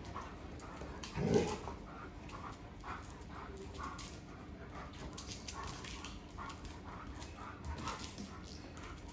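German Shepherd dog giving one short bark about a second in, then whining in short repeated calls, about two a second, worked up by a squirrel it is chasing in the bushes.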